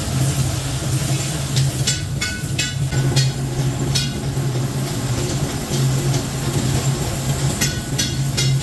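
Workshop machinery running with a steady low hum, with clusters of short metallic clanks about two to three seconds in and again near the end.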